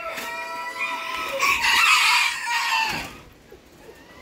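Rooster crowing: one long drawn-out note that falls slightly in pitch, then a louder, rougher stretch, dying away about three seconds in.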